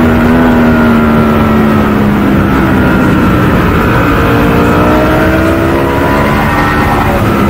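Ducati Panigale V4 superbike's V4 engine at speed on a track: the revs fall for about three seconds, then climb again, dip briefly, and climb once more near the end.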